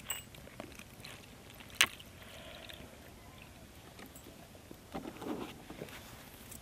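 Faint liquid sounds of palm toddy being poured into a glass and sipped, with one sharp click about two seconds in.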